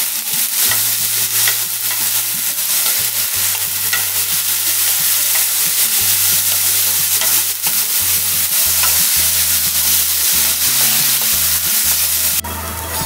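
Drained masoor dal (red lentils) frying in hot mustard oil in a kadai: a steady sizzle with the scrape and small clicks of a spatula stirring the lentils. Near the end the sizzle drops suddenly to a quieter level.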